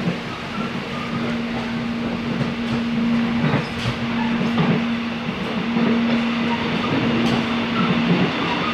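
Cabin noise of a moving electric airport rail link train: a steady rumble of wheels on track with a constant low hum and a few faint clicks.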